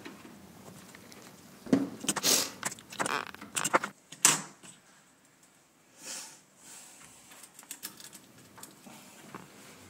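Circuit board covered in long unclipped component leads being handled on a wooden desk: about two and a half seconds of rattling and knocks, ending in a sharp knock a little after four seconds in. After that there is only faint fiddling with the leads.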